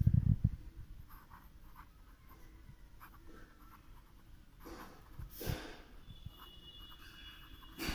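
Rorito Maxtron needle-tip gel pen writing cursive on lined notebook paper: the tip scratches faintly across the page, with a louder stroke about five seconds in. A few dull low thumps at the very start.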